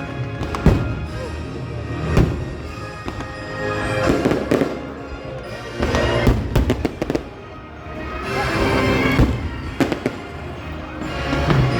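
Fireworks show: aerial fireworks bursting in sharp bangs, some in quick clusters, over loud show music with sustained tones.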